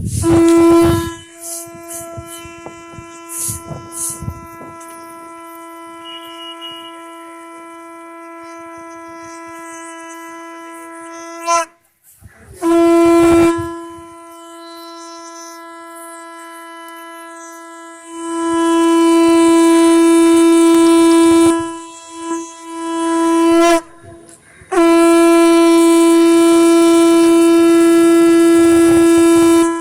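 Conch shell (sangu) blown in long blasts on one steady held note. The first blast opens loud and then holds softer for about eleven seconds. Four louder blasts follow, one short and the last about five seconds long.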